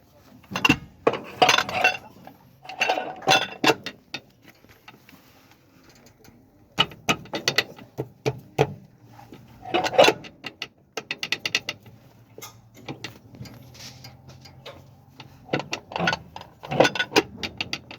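Ratchet wrench clicking in repeated short runs of rapid clicks, with metal clinks of tools and parts in between, as parts are fastened during a tractor brake repair.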